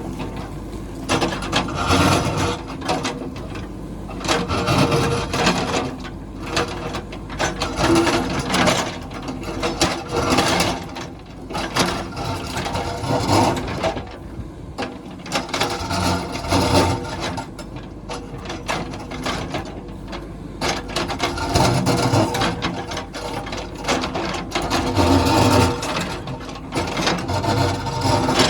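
JCB backhoe loader working rock: its diesel engine runs steadily beneath irregular scraping, grinding and crunching as the bucket digs into rock and stones.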